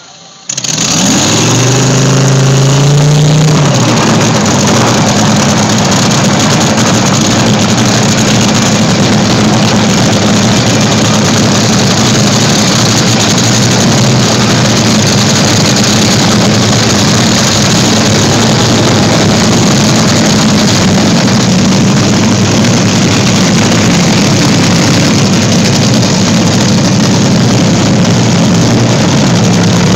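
A drag-racing car's engine fired up about half a second in, its pitch rising over the first few seconds as it catches and revs, then running very loud and steady.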